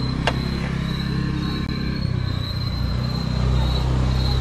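Steady low rumble of a vehicle's engine and running noise, heard from inside the vehicle, with a faint steady high-pitched tone above it and a single sharp click about a quarter second in.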